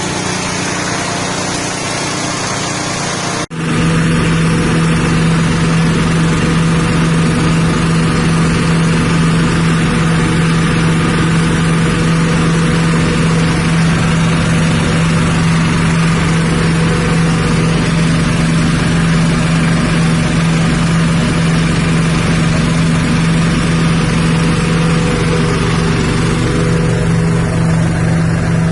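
Petrol-engine-driven rice husk grinding machine (6.5 hp engine) running steadily at speed. The sound changes abruptly about three and a half seconds in, then holds a steady, even engine note.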